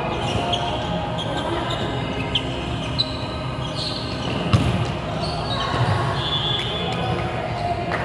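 Volleyball rally in a large gym hall: the ball is struck by hands a few times, the loudest hit about four and a half seconds in, with short squeaks of sneakers on the court floor.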